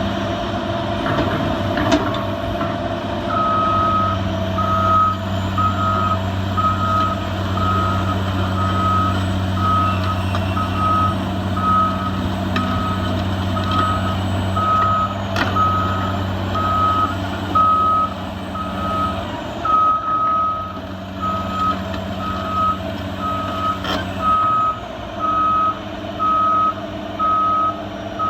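Cat 345CL hydraulic excavator's travel alarm beeping about once a second over its steady running diesel engine, the warning that the machine is tracking. The beeping starts a few seconds in, and there are a few sharp knocks.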